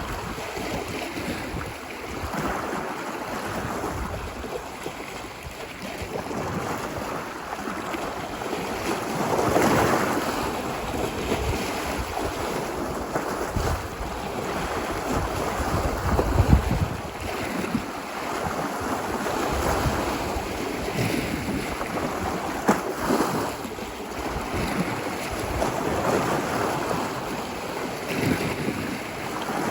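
Ocean waves breaking and washing up a beach. The rush swells and fades every few seconds, with the biggest surges about a third of the way in and again near the middle. Low rumbles of wind buffet the microphone.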